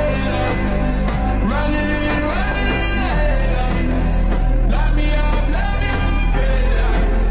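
Background music: a song with a singing voice over a steady bass and band accompaniment.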